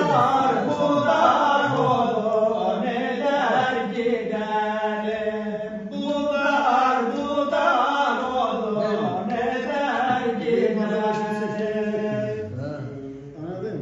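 A man singing a folk melody with sliding, ornamented long-held notes, with no instrument accompanying him. His voice drops away near the end.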